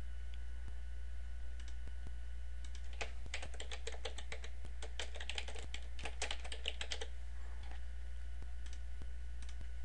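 Typing on a computer keyboard: a few separate clicks, then a quick run of keystrokes for about four seconds in the middle, over a steady low hum.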